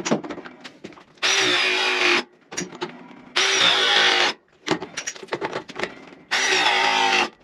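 Ridgid RP 241 ProPress battery press tool's motor running in three steady bursts of about a second each as its jaw crimps copper press fittings, with clicks and knocks of the tool being handled between the bursts.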